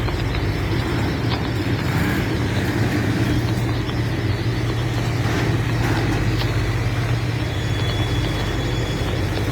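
Steady rumble of a passing CSX freight train, with a constant low hum throughout.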